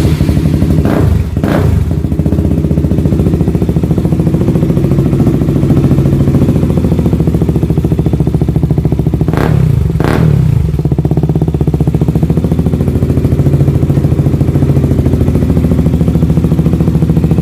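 KTM RC200's single-cylinder engine idling loudly through an Akrapovic slip-on muffler with its dB killer removed (open pipe). The throttle is blipped twice about a second in and twice again about nine seconds in, the revs rising and falling quickly each time.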